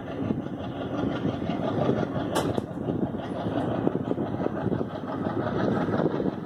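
An Indian Railways passenger train's coaches running along the track, heard from an open coach door: a steady rumble and rattle of wheels on rail. There is a sharp click about two and a half seconds in.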